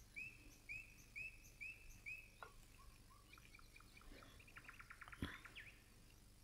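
Faint bird chirping: five short, arched chirps about half a second apart, then scattered softer notes and a quick rattling trill about four and a half seconds in. A single faint knock just after five seconds.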